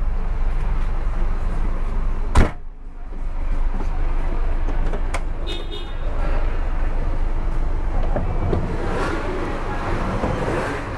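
Steady low hum of an idling bus, with one sharp loud knock about two seconds in and a short high beep a few seconds later; near the end, busier noise with faint voices.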